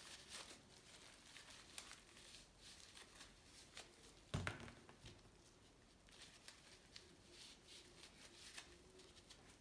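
Near silence with faint scattered handling clicks and one soft knock about four seconds in.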